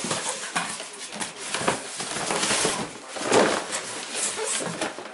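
Shipping packaging being torn open and handled: continuous rustling and crinkling of paper or plastic with sharp crackles and cardboard scrapes.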